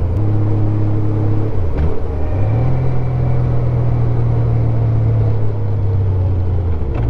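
Honda Goldwing 1500's flat-six engine running under way, with a rush of noise around it. About two seconds in, the engine note dips briefly, then climbs and holds a steady higher pitch.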